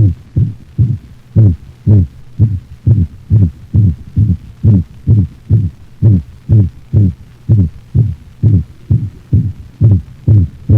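A dog's heart sounds in a stethoscope recording: regular low thumps at about two a second.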